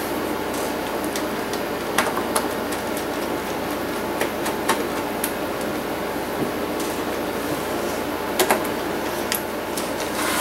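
Small clicks and taps of hands handling a laptop's bare LCD panel and screen frame. They come singly, with a sharper double tap about eight and a half seconds in, over a steady hiss.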